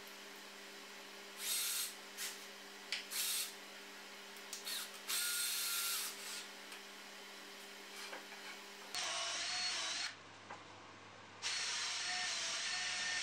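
Cordless drill-driver driving screws into birch plywood in three short bursts. After about nine seconds it runs in a longer stretch and then a continuous run with a slightly wavering whine, boring a hole down into the plywood.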